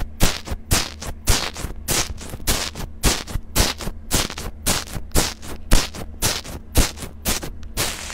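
Bubbly foam slime crackling and popping as a metal-tipped tool presses and drags through it, a quick run of sharp crackles about four a second, the loudest near the middle.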